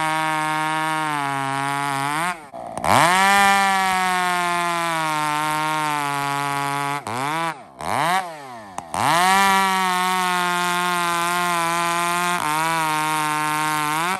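Gas chainsaw running at high revs, cutting through a log. The engine drops off about two seconds in and revs sharply back up, then dips several times between about seven and nine seconds before revving up again.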